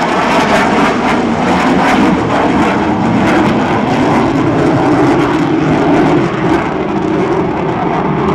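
Panavia Tornado jet flying a display pass, its twin RB199 turbofans making a loud, steady jet noise.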